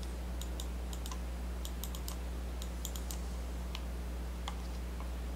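Computer keyboard keys tapped in irregular short clicks while drafting commands are entered, over a steady low electrical hum.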